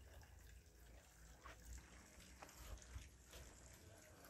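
Near silence: faint outdoor ambience with a low rumble and a few faint ticks.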